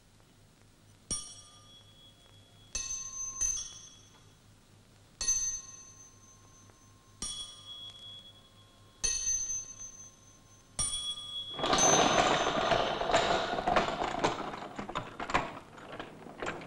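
Single bell-like chime notes struck one at a time, about every two seconds at changing pitches, each ringing out and dying away. About twelve seconds in, a louder, dense clattering noise takes over.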